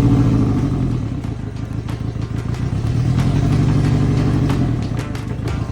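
Boat motor running unevenly: the engine note sags, picks up as it is revved and drops again, with irregular pops and clicks through it, the sound of a misfire from neglected maintenance.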